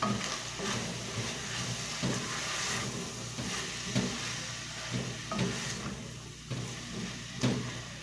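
A spoon stirring chopped vegetables and tomato paste in a cooking pot, scraping and knocking against it at irregular intervals, over a steady sizzle of the mixture frying in the pan; stirring is loosening the mixture from the bottom where it was sticking.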